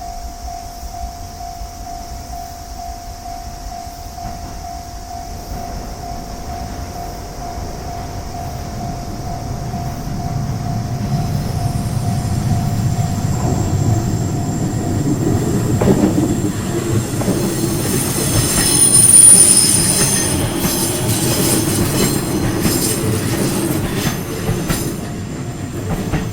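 Level-crossing alarm ringing in a steady pulsing rhythm while an electric train approaches and passes. The train's rumble grows louder, peaks about three-quarters of the way through with a high wheel squeal, and keeps running past.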